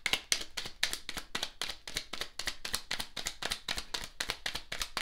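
Tarot deck being shuffled by hand: a quick, continuous run of soft card slaps and flicks, several a second.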